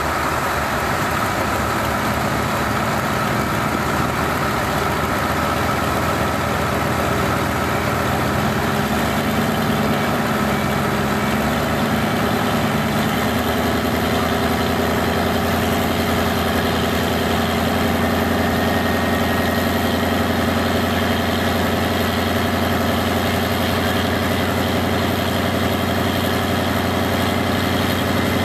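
Diesel pickup truck engine idling steadily while hooked to the pulling sled, not yet pulling. About halfway through, its note changes slightly and then holds steady.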